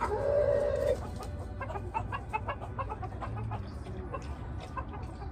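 Chickens clucking: one loud, held call about a second long, followed by a run of short, quick clucks.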